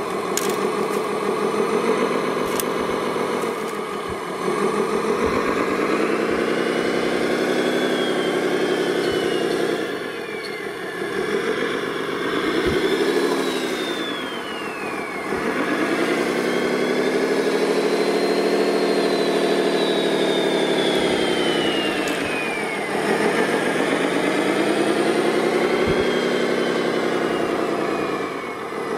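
Motor of a radio-controlled construction machine model running, its pitch sweeping up and down again several times as it speeds up and slows under control.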